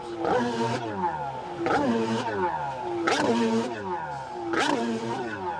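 Freestyle stand-up jet ski engine revved hard in repeated bursts, about every second and a half, each time climbing sharply and then falling away as the ski flips, with a rush of spray at each burst.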